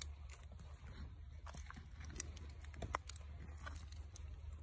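A hand digging and pressing into wet mud, giving faint wet crunching and scattered small clicks.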